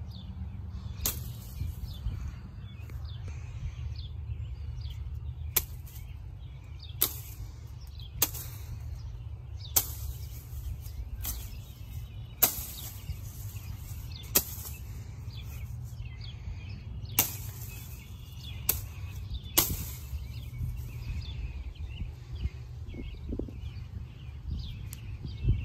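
A folding knife slashing through the small branches and leaves of a bush: a dozen or so sharp swish-and-chop strokes, one every second or two, over a steady low rumble.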